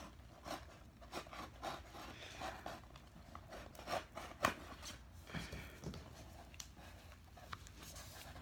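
Plastic seal being opened on a box: faint, irregular rubbing, scraping and crinkling with small clicks.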